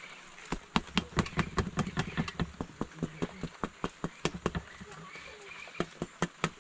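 Cassava bread being patted flat by hand on a griddle: a quick, uneven run of sharp pats, several a second, starting about half a second in.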